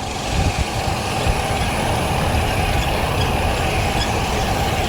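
Headwind rushing and buffeting over the microphone of a bike-mounted action camera while cycling, a steady rush with gusty low rumble.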